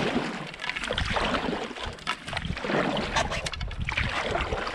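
Canoe paddle strokes through lake water: a swish of water every second or so as the paddle pulls, with a few light knocks.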